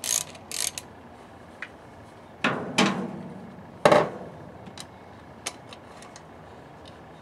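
Metal air-filter housing being worked loose and pulled off an SU HS6 carburetor. Scraping near the start, a knock about two and a half seconds in, a louder, sharp knock about a second later, then a few light clicks.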